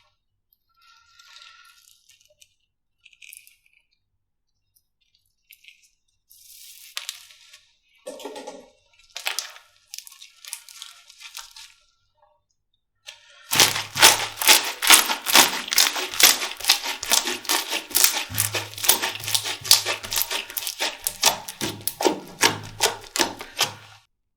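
Slime being squeezed and poked by hand: a few scattered soft crackles, then from about halfway a fast, dense run of loud popping and crackling clicks.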